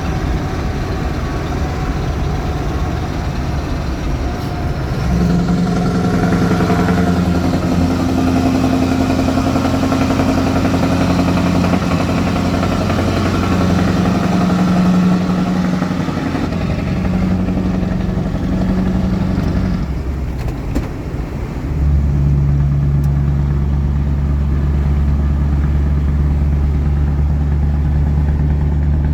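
Scania 650 hp V8 truck engine in a tunnel, its exhaust popping and crackling. The deep engine note rises and falls in pitch, then breaks off briefly with a few sharp cracks just before the middle of the second half, and settles into a deeper, steady drone.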